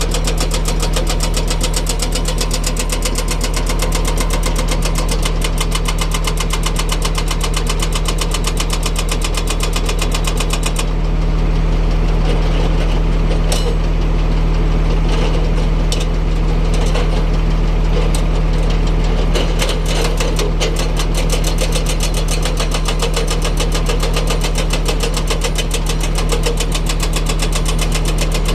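Heavy diesel engine of a construction machine running steadily with a fast, even pulse. About a third of the way in the hiss thins and a few sharp clicks come through.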